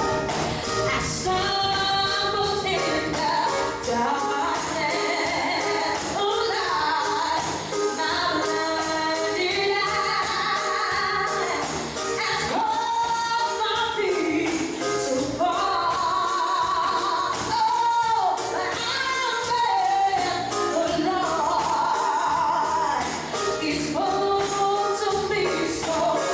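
Congregational gospel singing with music and a tambourine keeping a steady beat.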